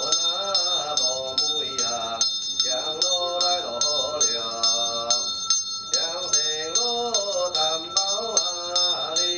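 Funeral ritual music: a small metal bell struck in a steady rhythm of about three strokes a second, its high ringing carrying on between strokes, over a wavering chanted or played melody.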